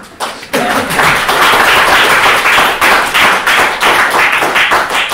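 Audience applauding: many hands clapping, swelling within the first second and then holding steady.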